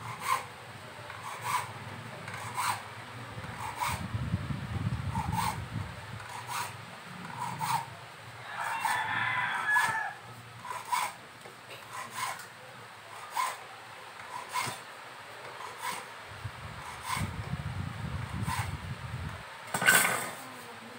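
Hacksaw cutting grooves into an orange plastic end cap, slow short rasping strokes about one a second, with a louder knock near the end.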